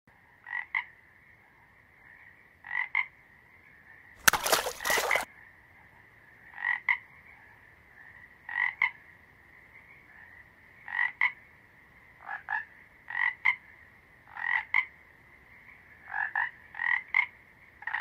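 Frogs croaking: short calls, mostly in quick pairs of notes, repeated about every two seconds over a steady high-pitched background drone. About four seconds in there is a louder, harsher noisy burst lasting about a second.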